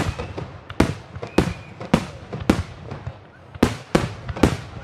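Aerial firework shells bursting in a professional display: a rapid series of sharp bangs, about two a second, some overlapping.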